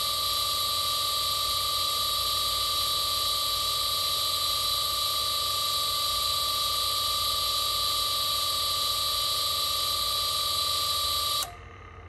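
ABB ACQ580 variable frequency drive running its motor at 50 Hz output: a steady high electrical whine over a hiss. Near the end it cuts off suddenly as the drive trips on a simulated motor over-temperature fault.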